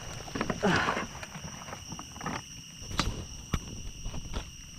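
A steady high-pitched insect drone, with a rustle of dry leaves about half a second in and a couple of sharp clicks around three seconds in.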